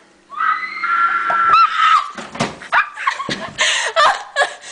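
A girl's voice screams in one long, high-pitched cry lasting nearly two seconds. It breaks into choppy bursts of laughter and shrieks.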